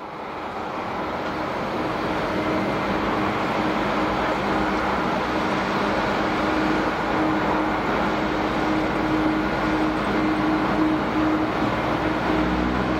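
Jet engines of a Boeing 777-300 running steadily at high power, a dense noise with a few steady humming tones, building over the first second or two.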